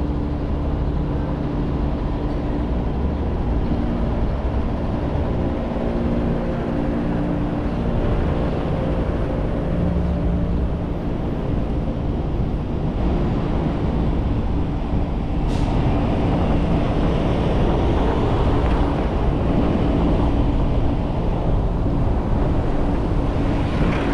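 A car driving through city traffic: steady low road and engine rumble with a constant hum over it. About halfway through the hum fades and a broader rushing noise takes over, slightly louder, with one brief click.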